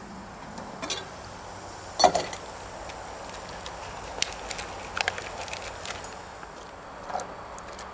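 Propane camp stove burner hissing steadily under an enamelware pot of boiling water. About two seconds in the enamel lid clanks as it is lifted off, then broccoli florets and baby carrots drop into the water with a few small splashes and clicks.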